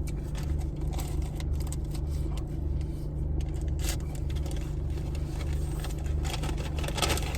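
Steady low hum of a car idling with its air conditioning running, with scattered small clicks of chewing and food handling over it.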